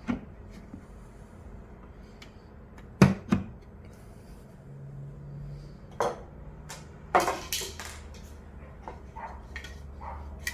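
A handful of sharp knocks and clicks, as of small parts being handled and set down: a quick pair about three seconds in, another near six seconds, and a short cluster a little after seven seconds.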